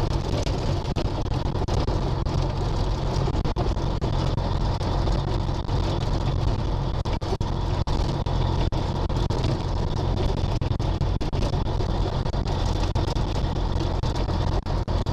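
Peterbilt 379 truck's diesel engine running steadily at low revs as the truck drives slowly, with no revving or gear-change surges.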